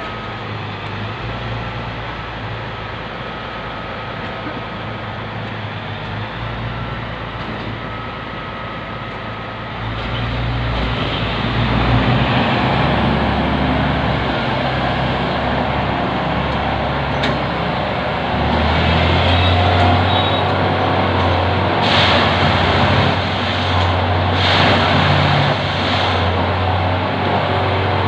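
Railway ballast-tamping machine running with a steady engine drone. The drone grows louder about ten seconds in and deepens again a little past the middle. Two short bursts of high-pitched noise stand out in the last third.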